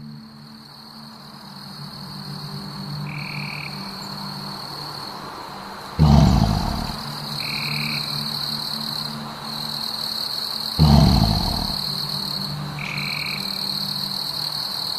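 Eerie ambient soundtrack: a steady low drone under a thin high tone, with short chirps every few seconds. Two sudden deep booms come about six and eleven seconds in.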